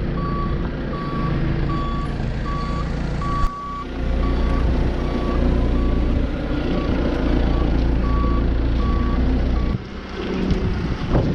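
Lorry reversing: its reversing alarm beeps about twice a second over the steady rumble of its diesel engine. The beeping stops shortly before the end.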